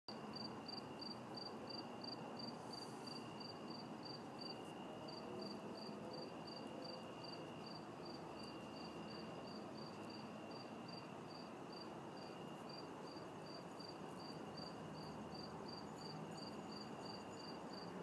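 Crickets chirping in an even rhythm of about three short, high chirps a second, with a lower insect trill coming and going in stretches of a second or two.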